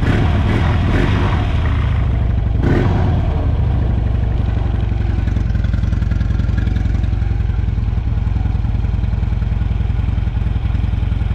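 Harley-Davidson Low Rider V-twin engine running just after starting on a salvage bike. It swells briefly twice in the first three seconds, then settles into a steady idle.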